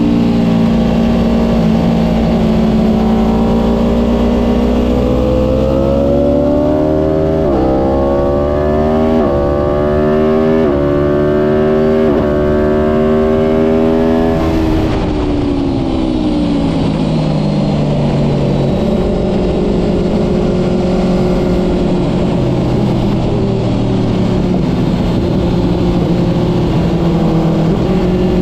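2017 Aprilia RSV4 1000 RF's V4 engine accelerating hard, its pitch climbing and dropping sharply four times as it shifts up through the gears. About halfway through the revs fall away as the bike slows, then hold lower and steady, with wind rush throughout.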